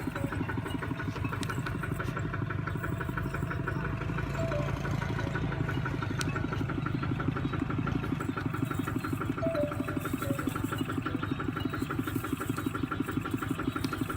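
Small engine running steadily at an even idle, with a fast regular beat.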